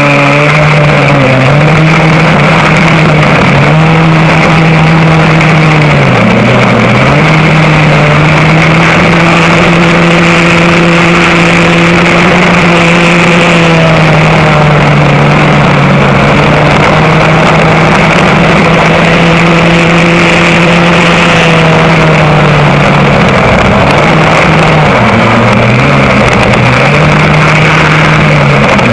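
Vintage rear-engine go-kart's engine at racing speed, heard close up from the kart: it holds a steady high pitch for long stretches and dips briefly, then picks back up, about seven times as the kart slows for corners.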